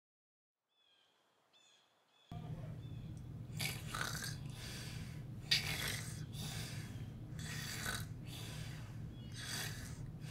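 Snoring: repeated noisy in-and-out snoring breaths, under a second apart, over a steady low hum. Faint high chirps in the first seconds, before the snoring starts.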